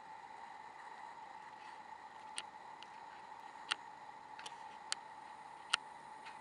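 Camera self-noise: a steady faint high hum over light hiss, with about five sharp, separate clicks in the second half.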